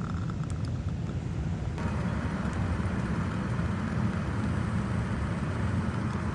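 Running central air-conditioning system: a steady low hum with a rush of moving air, the airy hiss getting louder about two seconds in.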